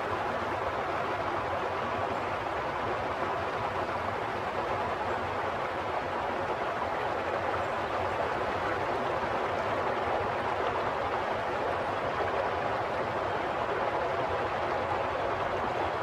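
Steady flowing water: an even wash of noise with no separate splashes or bubbles standing out.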